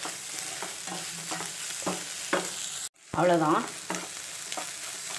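Egg fry (crumbled, masala-spiced fried egg) being stirred and scraped with a spatula in a non-stick pan, sizzling in oil, with repeated short scraping strokes. The sound drops out briefly about three seconds in.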